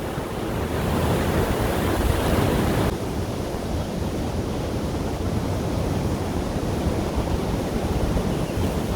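Steady wind blowing, with gusts rumbling on the microphone. The high hiss drops suddenly about three seconds in.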